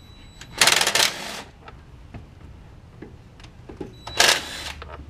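Cordless impact tool hammering in two short bursts, about a second in and again near the end, spinning out the bolts of the lower timing belt cover, with light clicks of tools and parts between.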